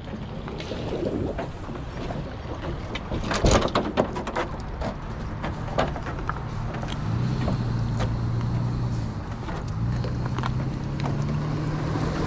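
Boat motor running with wind on the microphone: a few sharp knocks about three to five seconds in, then a steady low hum from about halfway that rises in pitch near the end.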